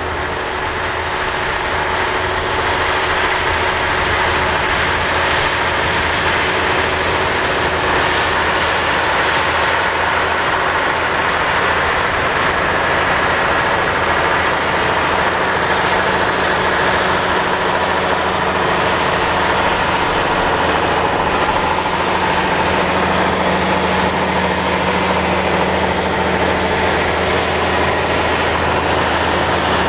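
Diesel engine of a 550 hp Versatile DeltaTrack tractor running steadily under load while pulling a 12-bottom plow, a constant low hum with no change in pace.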